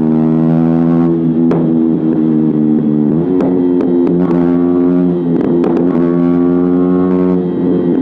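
KTM Duke 125's single-cylinder engine running through an Akrapovic exhaust, holding a steady drone at cruising revs, its note rising a little about three seconds in.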